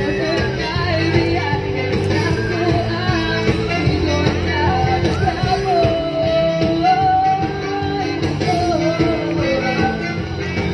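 Music with a singing voice over guitar and a steady beat; the singer holds one long note about halfway through.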